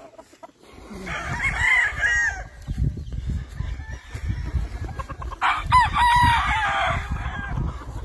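Gamecocks crowing twice, first about a second in and again, louder, a little past the middle, over a low rumble.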